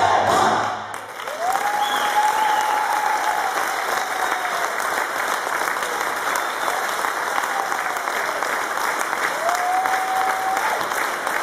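Audience applauding, starting about a second in as the folk dance music with tambourine ends.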